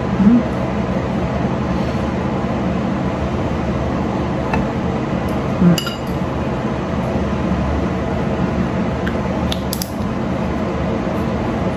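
Eating sounds at a table: a metal spoon clinking and scraping in a ceramic rice bowl, over a steady background hum. Near the end come a few sharp clicks as a plastic water bottle is handled and its cap twisted.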